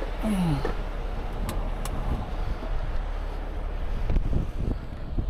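Heavy rotator tow truck's diesel engine running steadily with wind buffeting the microphone. A brief falling tone comes just after the start, and two light clicks about a second and a half and two seconds in.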